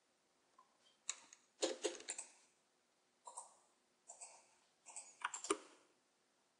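Faint computer mouse button clicks, about a dozen short sharp clicks in irregular clusters, some in quick pairs.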